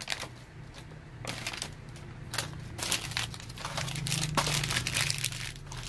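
Thin plastic packaging crinkling and rustling in irregular crackles, busiest from about two seconds in, as vacuum-packed rice cakes are handled and pulled apart.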